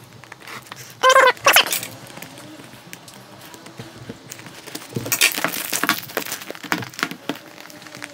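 Thin plastic shrink-wrap being snipped with scissors and peeled off a cardboard product box, crinkling and rustling, loudest about five seconds in. A short high-pitched whine sounds about a second in.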